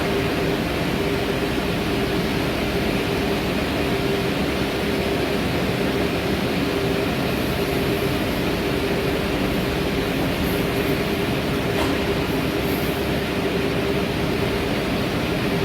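CNC router cutting plywood: a steady, even machine noise with a constant hum-like tone running through it, unbroken throughout.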